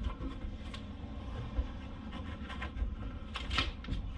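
A few light taps and scrapes from hands handling the underside of a car's steel fuel tank, over a low steady rumble.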